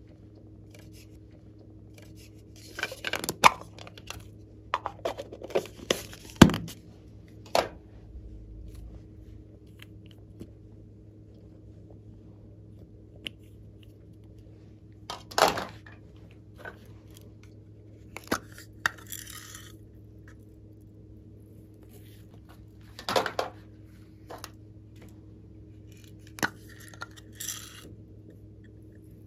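Small plastic containers, caps and craft pieces handled close up: scattered sharp clicks, taps and scrapes at irregular intervals, with a couple of brief rattling hisses as sequins are shaken out, over a faint steady hum.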